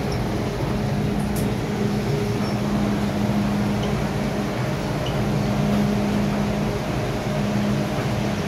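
Steady low mechanical hum on an underground metro platform, with a low drone that cuts in and out every second or two.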